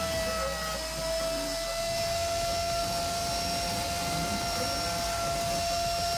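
Compact trim router spindle on a CNC router running at speed, its bit cutting an engraved design into a board: a steady high-pitched motor whine with a slight dip in pitch now and then.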